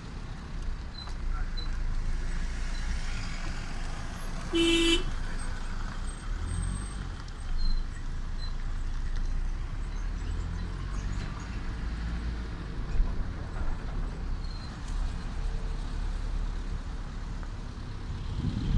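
Truck and car engines running with a steady low rumble of road traffic. A vehicle horn gives one short toot about four and a half seconds in.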